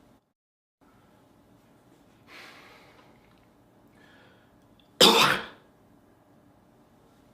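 A man coughs once, sharp and loud, about five seconds in. A softer breathy sound comes about two seconds in, over faint room tone that drops to dead silence for a moment near the start.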